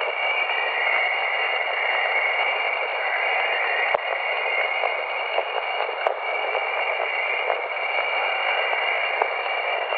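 Jovian chorus: plasma waves in Jupiter's magnetosphere, recorded by Voyager and played back as sound. A steady hiss with a few constant high tones over it and a band of pitch that drifts up and down.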